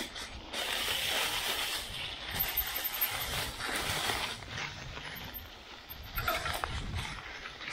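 Bicycle riding over a rough ridge track: a rushing noise that swells and eases, with a few knocks and rattles about six seconds in.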